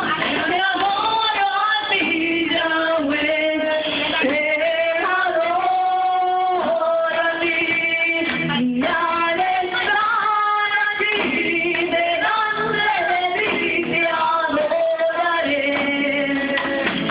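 A Christian worship song: women's voices singing a slow melody over instrumental accompaniment, with no pauses.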